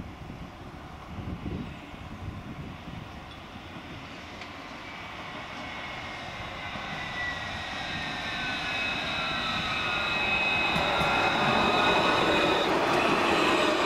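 Alstom Citadis low-floor tram approaching and passing close, growing steadily louder. From about five seconds in, high whining tones from its drive and wheels come in, gliding slightly in pitch and strengthening as it nears.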